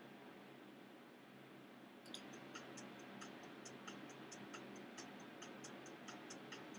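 Near silence, then from about two seconds in a faint, fairly regular ticking, about four ticks a second.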